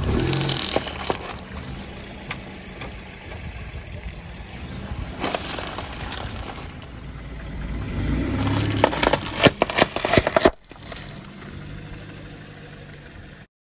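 A car's tyre rolling over and crushing brittle objects: bursts of crackling and snapping over the engine's low running. The loudest, densest run of cracks comes about nine to ten seconds in, then the sound drops off sharply.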